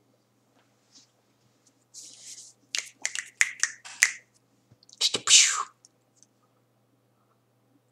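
A person's close-up mouth and breath noises: a series of short, sharp clicks and hissy puffs, and about five seconds in a louder hissing burst that falls in pitch.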